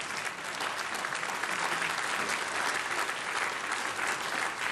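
Audience applauding: many hands clapping in a dense, even patter at a steady level.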